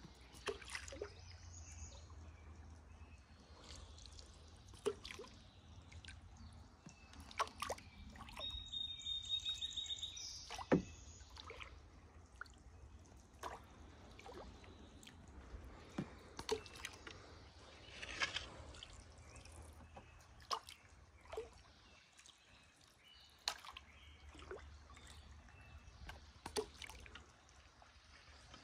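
Solo canoe paddling: water dripping and trickling off the wooden paddle blade with light splashes at each stroke, and scattered sharp knocks. A thin, steady high whistle lasts about a second and a half, about eight seconds in.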